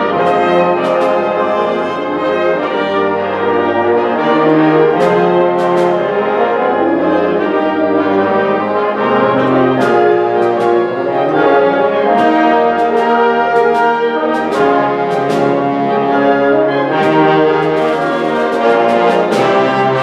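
High school symphonic band of woodwinds, brass and percussion playing a piece live: full sustained chords with the brass prominent, punctuated by sharp accents, which come thickest near the end.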